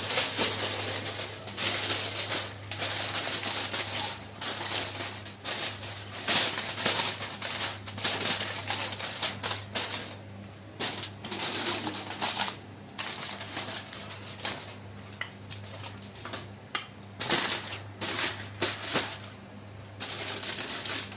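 Aluminium foil crinkling and rustling in irregular bursts, with small clicks and scrapes, as it is pressed and folded over the rim of a pot to seal in charcoal smoke.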